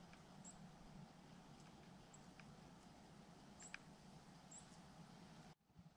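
Near silence: a faint steady hiss with a few faint, very high, short squeaks scattered through it, and a few soft clicks.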